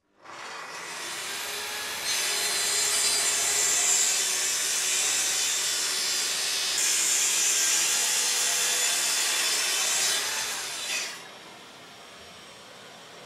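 Plunge-cut track saw on a guide rail, connected to a dust extractor, ripping through a wooden board. The saw starts up, cuts from about two seconds in until about eleven seconds, then stops. The dust extractor keeps running steadily after that.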